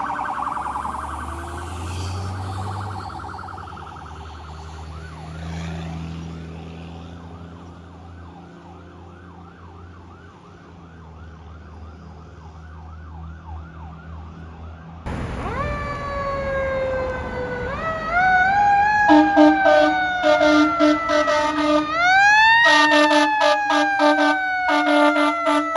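Fire truck sirens. First a fast warbling siren fades away over a truck's low engine rumble as the rig passes. Then a second fire truck's siren rises and slowly falls, winding up again near the end, with short repeated horn blasts over it.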